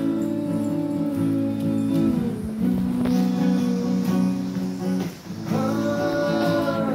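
Acoustic guitar strummed as accompaniment to two men singing together in long held notes, with brief breaks between phrases about two and a half and five seconds in.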